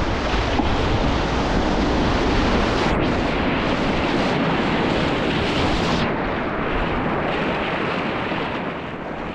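Whitewater rapid rushing and crashing loudly and steadily around a kayak, easing a little near the end.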